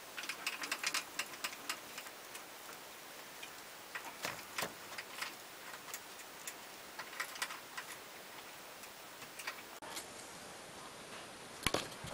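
Irregular light clicks and taps in short clusters, from metal rifle parts being handled on a wooden workbench while the barrel is taken off a Krico .22 rifle. A couple of sharper knocks come near the end.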